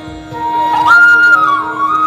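Indian classical-style music: a single flute melody sliding between held notes over a steady drone, coming in about half a second in.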